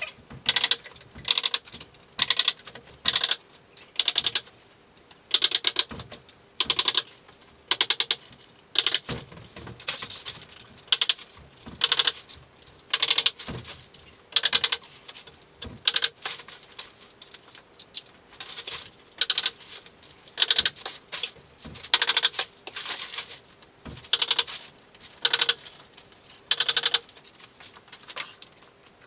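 A staple gun firing staples through polythene sheeting into a timber frame, one sharp clattering shot about every second, over and over, as the plastic is fixed along the edge of the panel.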